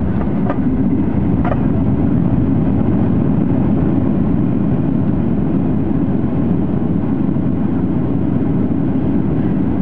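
Loud, steady rumble inside the cabin of a Boeing 737-800, from its CFM56 engines and its wheels rolling on the runway, as the airliner slows after touchdown.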